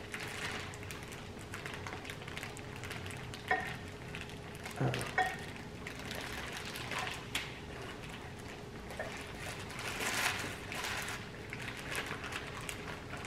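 Clear plastic oven bag rustling and crinkling as it is lifted and handled, with wet sounds from the seafood boil in butter sauce inside; a few louder crackles come a few seconds in.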